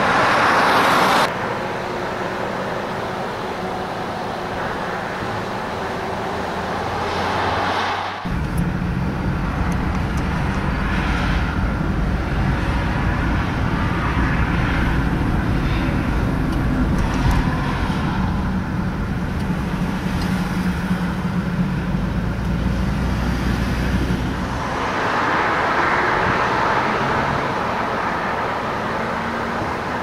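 Highway traffic: a vehicle rushes past in the first second. After a cut about eight seconds in comes the steady low rumble of road and engine noise from a car driving along the highway. Near the end another vehicle passes.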